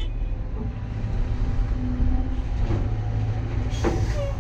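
CAT 320 excavator running steadily under load, its diesel engine and hydraulics heard from inside the cab as a low rumble. Near the end comes a brief louder burst as a bucketful of wet mud drops into a steel dump-truck bed.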